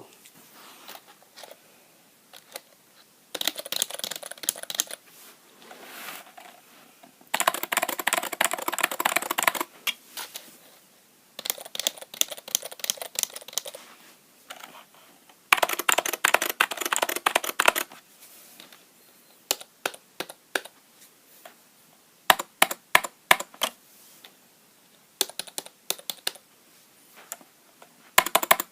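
Typing on the Sega Saturn keyboard, whose Scorpius rubber domes with sliders give soft key clicks: four runs of fast typing a few seconds each, then single, separate keystrokes over the last third.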